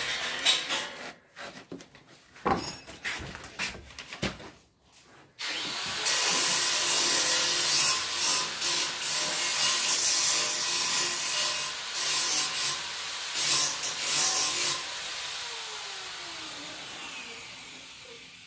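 Handheld electric power tool working wood. A few scattered knocks come first. About five seconds in the tool starts and grinds or cuts into the wood with an uneven noise. In the last few seconds it is let off and winds down, its pitch falling as it coasts to a stop.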